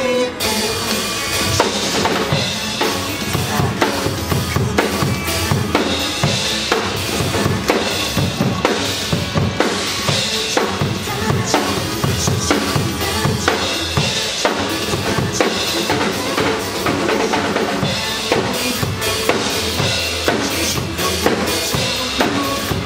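Live band playing an instrumental passage with the drum kit to the fore: steady kick and snare hits under the other instruments, no singing.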